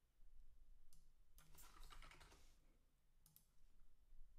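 Faint computer keyboard and mouse clicks: a short run of keystrokes a little over a second in, with single clicks before and after.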